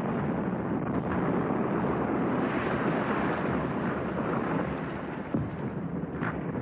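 Steady rushing noise of wind buffeting the microphone, with a few faint clicks.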